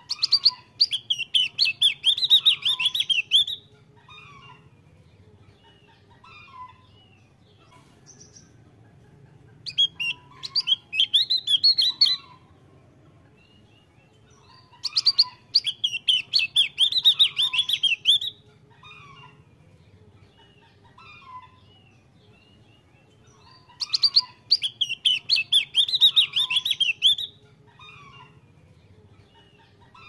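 Javan grey-throated white-eye (opior jawa) singing a fast, high, twittering warble of many quick notes, in four bursts of about three seconds each separated by pauses of a few seconds.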